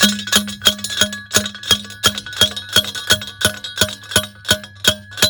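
Rapid, evenly spaced metallic strikes, about three a second, each leaving a ringing tone.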